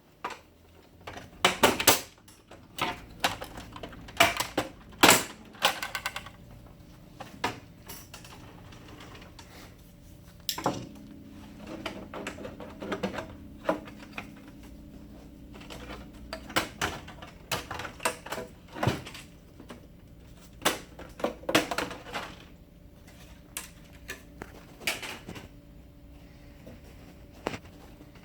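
Irregular plastic clicks, snaps and knocks from handling a laser printer's covers and parts during disassembly, some sharp and loud, others light.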